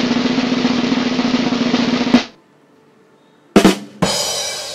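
Snare drum roll in stock intro music, cutting off suddenly about two seconds in. After a short pause come two sharp hits less than half a second apart, the second ringing out and fading.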